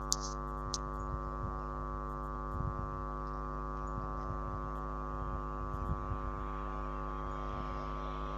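Steady electrical mains hum with many even overtones, unchanging throughout, with a couple of brief high chirps near the start.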